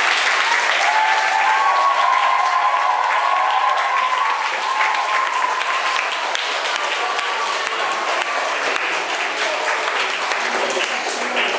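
An audience of schoolchildren applauding steadily, with children's voices calling out over the clapping in the first half.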